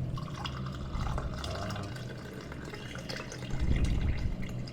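Herbal decoction being strained into a cup: liquid pouring and trickling, with a louder dull low rumble about three and a half seconds in.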